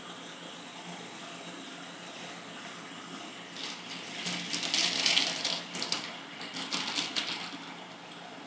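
Metal spatulas scraping and chopping on the frozen steel plate of a rolled ice cream maker: a run of rasping strokes from about three and a half seconds in until about seven and a half, over a steady background hiss.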